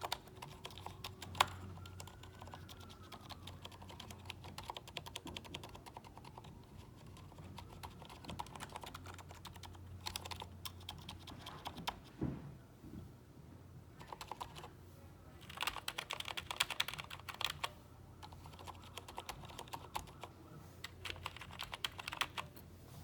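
Typing on an Ergodox EZ keyboard fitted with silent Cherry MX-stem linear switches: a steady run of soft keystrokes in uneven bursts, with a denser flurry about two-thirds of the way through. The phone microphone is close to the keys, so they come through louder than in the room.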